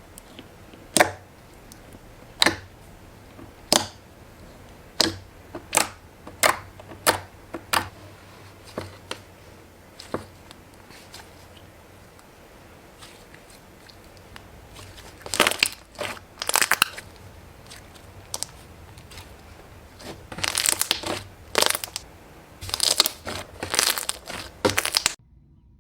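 Crisp crunches of something brittle being cut or crushed, one sharp crunch about every second at first, then rapid bursts of crackly crunching near the end.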